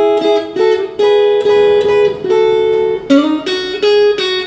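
Telecaster-style electric guitar playing a run of picked two- and three-note chord shapes, each left to ring, about two or three a second, stepping through a sequence of triad shapes.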